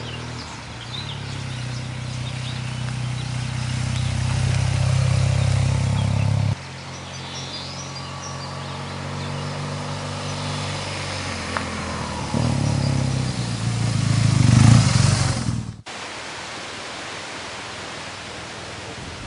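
BMW R1200GS's air/oil-cooled boxer twin running as the bike rides toward and past the microphone, the engine note swelling in two passes. The first breaks off sharply about six and a half seconds in; the second is the loudest, building to about fifteen seconds in and then cutting off suddenly, leaving a steady outdoor hiss.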